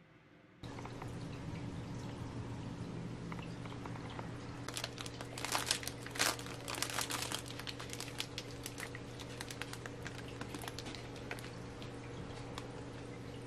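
Clear plastic strawberry packaging crinkling and crackling as it is handled and turned over, the crackles loudest and most frequent in the middle. A steady low hum runs underneath.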